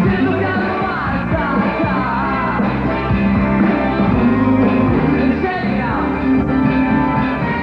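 Rock band playing a song with a singer.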